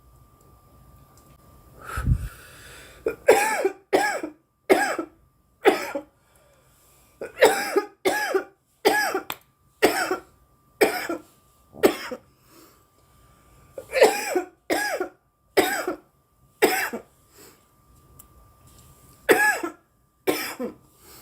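A young woman coughing in a long fit: about twenty sharp coughs in runs of four to nine, with short pauses between the runs. A low thump comes just before the first run, and a faint steady tone hums underneath.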